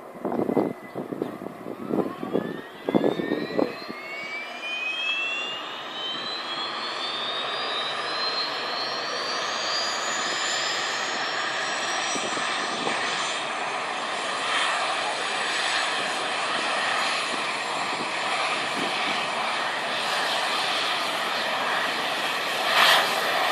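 AgustaWestland AW139 helicopter's turboshaft engines spooling up: a whine that climbs steadily in pitch for about ten seconds and then levels off, over a steady turbine rush that builds and holds. A few brief loud bursts come in the first four seconds.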